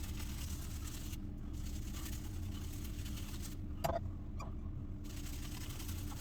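Badger shaving brush working a shaving-soap lather, over a steady low hum; a short click near four seconds in.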